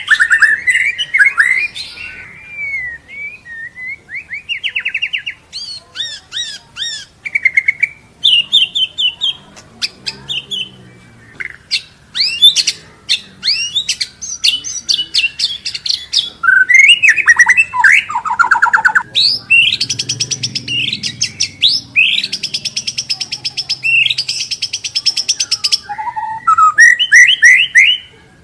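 White-rumped shama singing a long, varied song of whistles, fast trills and rapid runs of repeated notes, packed with mimicked phrases borrowed from other birds.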